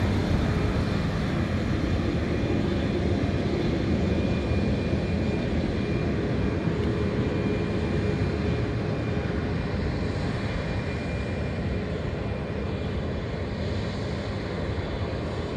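Boeing 737 MAX's CFM LEAP-1B turbofans running at taxi thrust as the airliner rolls along the taxiway: a steady jet rumble with a faint whine. The sound slowly fades as the plane moves away.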